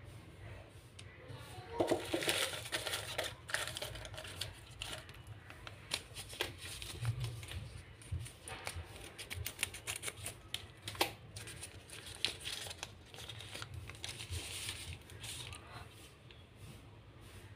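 Paper rustling and crinkling as hands handle folded slips of lined paper, with scissors snipping through paper and many small clicks and taps.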